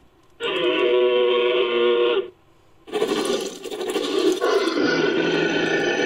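Made-up dinosaur vocal sound effects for Eustreptospondylus: a held, pitched call of nearly two seconds, then after a short pause a rougher, noisier call that runs on.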